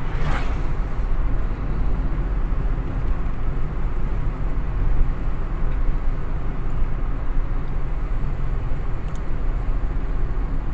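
Steady road and engine noise heard from inside a moving car's cabin, tyres on asphalt with the engine running at cruising speed.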